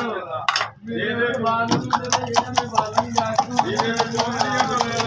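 Rapid, even clicking of a utensil beating eggs in a steel bowl, about five strokes a second, starting about two seconds in.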